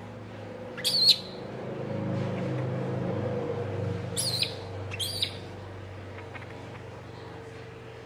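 A baby monkey gives three short, shrill screams that fall in pitch: one about a second in, then two close together a few seconds later. A low hum swells and fades under them.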